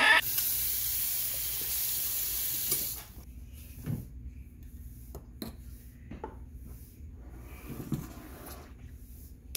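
Water from a kitchen faucet running into a sink for about three seconds, then shut off. A few light knocks and clinks follow.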